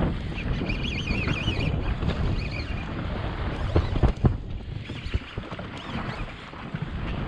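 Wind buffeting the microphone and sea water slapping against the hull of a drifting jet ski. A brief warbling high whine comes about a second in, and a few sharp knocks come about four seconds in.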